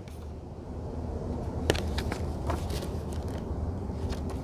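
Steady low background rumble, with a few light clicks and rustles about two seconds in as a paperback reference book is handled.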